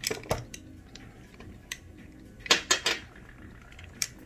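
Small hard objects being handled and set down: sharp clinks and knocks, a couple right at the start, a quick run of three about two and a half seconds in, and one more near the end.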